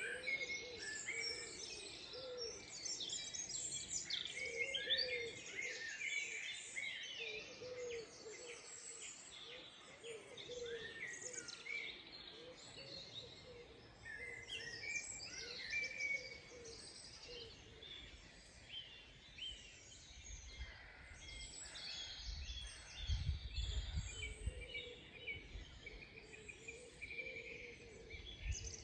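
Many birds chirping and singing together in bare trees, lots of short overlapping calls, with a lower call repeating underneath. A low rumble comes in about two-thirds of the way through.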